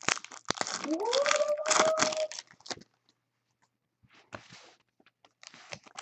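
Foil trading-card pack wrappers crinkling and tearing as packs are ripped open, loudest in the first three seconds, with softer crinkles later. About a second in, a cat meows once, a long call that rises and then holds.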